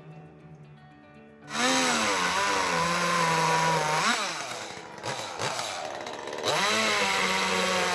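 A small engine revving up and down in two loud spells, starting about a second and a half in, easing off around the middle and revving again near the end.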